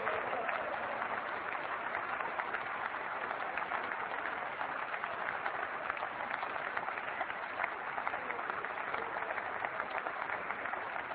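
Members of parliament applauding: many hands clapping at a steady level.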